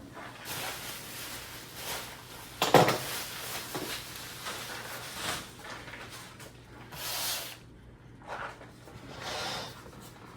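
Packing material being rustled and pulled out from around an oscilloscope, with a sharp knock about three seconds in and several shorter rustles and scrapes after it.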